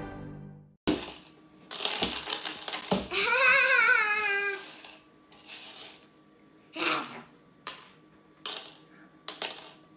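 Intro music fading out, then a rapid clatter of small hard pieces for about two seconds, followed by a brief wavering child's voice and a few scattered clicks.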